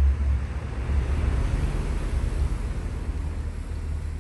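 A steady low rumble with a broad noisy haze that swells in the middle and eases off.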